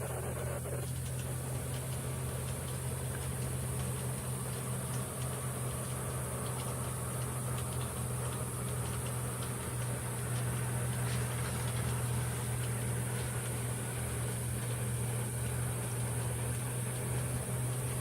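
Hunter Leoni 48-inch three-blade ceiling fan running steadily at high speed: a low steady hum with an even rush of noise, and faint drips of rain off a roof.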